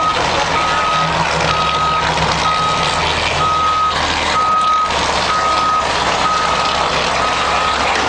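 Concrete mixer truck's reversing alarm beeping about once a second on one steady tone, over the truck's diesel engine running as it backs up.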